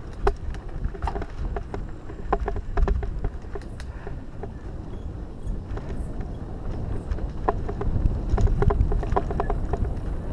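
Mountain bike riding along a dirt singletrack: low wind rumble on the microphone with frequent short clicks and rattles from the bike over the bumps, busier near the end.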